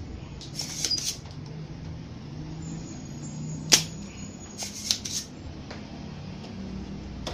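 Spring-loaded desoldering pump firing with one sharp snap about halfway through, sucking molten solder from the flyback transformer's pins, with shorter clusters of clicks and rattles around one second in and again just after the snap. A steady low hum runs underneath.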